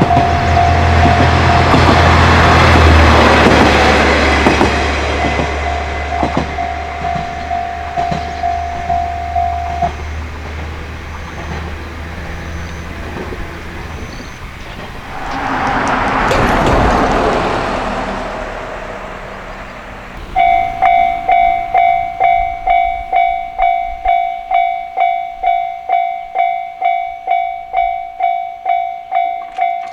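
A train runs past at a level crossing while the crossing's electronic warning alarm sounds; the alarm stops about 10 s in. A second swell of passing noise comes a few seconds later. About 20 s in, another crossing's warning alarm starts, ringing about twice a second.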